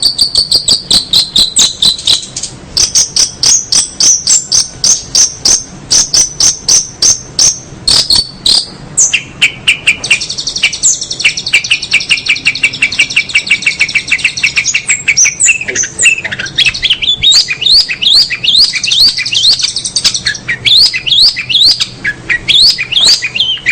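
A songbird singing at close range: a fast, continuous run of sharp chirps and trills, turning into a series of quick rising whistled notes in the second half.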